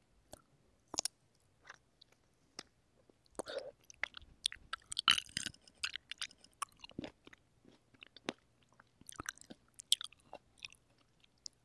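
Fresh sweet cherries bitten and chewed close to a microphone: a string of separate wet clicks and smacks, sparse at first, busiest a little past the middle and again near the end.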